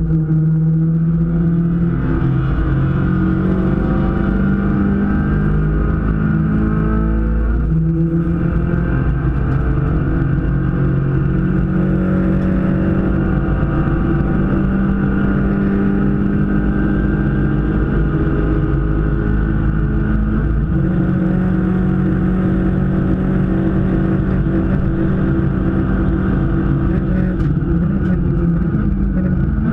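1.6-litre race car engine heard from inside the cabin, running hard on track at fairly steady high revs. Its note steps in pitch twice, about a quarter of the way in and again about two-thirds of the way through.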